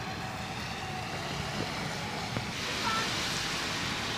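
Outdoor city ambience: a steady hum of distant traffic, with a hiss that grows louder a little past halfway and a child's faint call about three seconds in.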